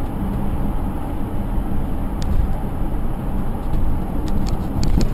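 Steady low road and engine rumble of a car driving, heard from inside the cabin, with a few light clicks near the end.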